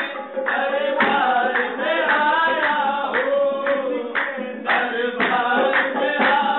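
Qawwali: voices singing a devotional melody over a steady percussive beat of regular sharp strokes, recorded thin with no bass.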